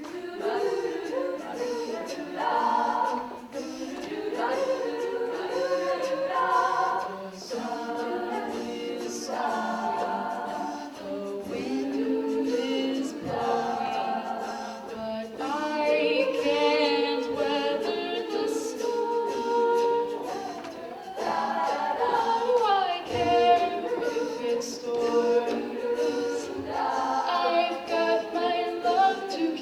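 A cappella vocal group singing in close harmony, opening a jazz standard arranged with scat singing; the voices come in together at the start with wordless, syllable-based lines and no instruments.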